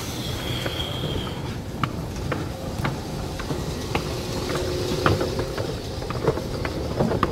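Escalator running: a steady mechanical rumble with irregular clicks. A thin high squeal sounds in the first second or so, and a faint steady hum comes in through the middle.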